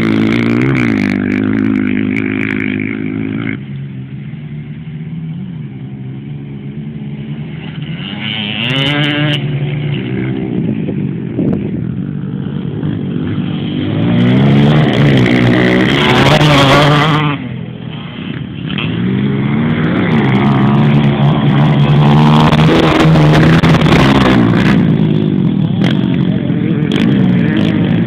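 Dirt-track motorcycle engines revving and changing gear, their pitch rising and falling over and over as the bikes lap a dirt track. Midway, one bike passes close and loud, and the sound drops briefly before the engines pick up again.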